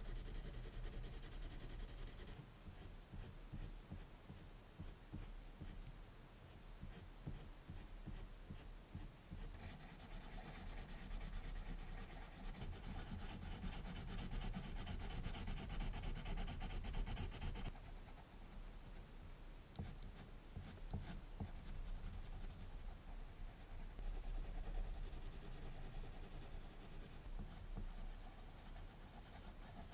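Prismacolor colored pencils rubbing on drawing paper in quick, short shading strokes, louder for several seconds in the middle.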